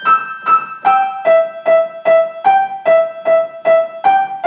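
Piano played one note at a time in short, separated strokes, about two and a half notes a second. The notes mostly repeat one pitch, with an occasional step up to a higher note.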